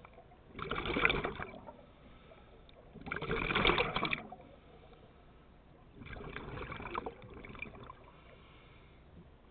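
A scuba diver breathing through a regulator underwater: three bursts of bubbling as exhaled air vents from the regulator, roughly every three seconds, with quieter spells between breaths.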